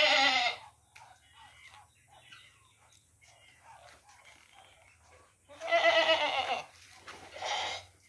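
Goats bleating: a short bleat right at the start, then a longer wavering bleat about six seconds in, followed closely by a shorter one.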